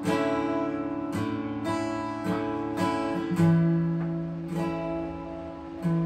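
Acoustic guitar strummed slowly, a chord about every second, each left to ring out. The strongest strum, with a deep bass note, comes a little past the middle.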